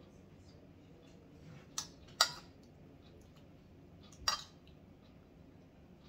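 Spoon and fork clinking against a dish while eating: three sharp clinks, the first two close together about two seconds in, the second the loudest, and a third about four seconds in.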